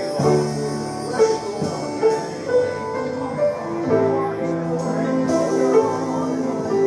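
Church worship music: instruments playing held chords that change every second or so.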